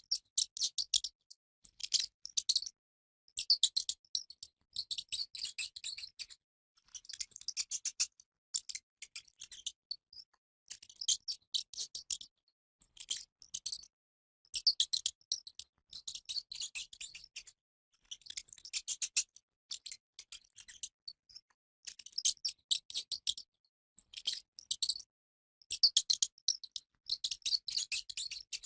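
Rat squeaking: rapid high-pitched chirps and chitters in bursts of one to two seconds, separated by short pauses.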